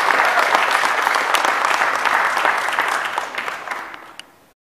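Congregation applauding. The clapping fades away over the last second and a half.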